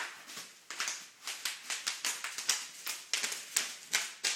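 Bubble wrap popping under running feet: a rapid, irregular string of sharp pops, several a second.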